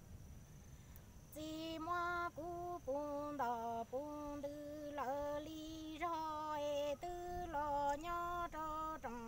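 A woman singing Hmong kwv txhiaj unaccompanied, starting about a second and a half in. She holds level notes that step between a few pitches, with short breaks between phrases.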